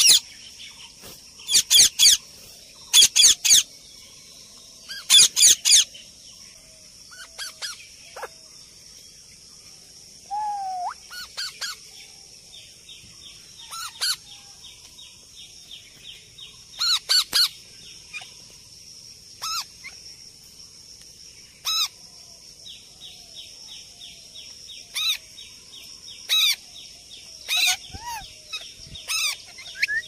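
Alexandrine parakeets screeching: loud, harsh calls in quick groups of two or three during the first six seconds, then single calls every couple of seconds, with a steady high hiss behind.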